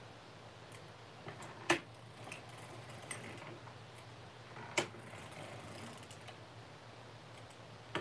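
Light metal clicks and clinks from hands working a Legare circular sock knitting machine's needles and weights, with two sharper clicks, one under two seconds in and another about five seconds in.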